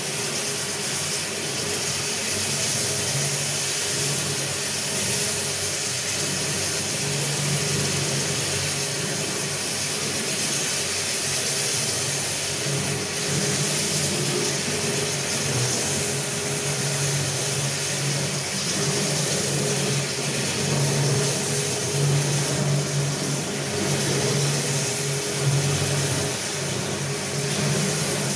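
Marble floor polishing machine running steadily, its motor humming and its pad grinding over the wet marble floor with an even hiss. The hum wavers a little in strength.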